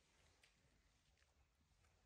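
Near silence: faint room tone with a few very faint clicks.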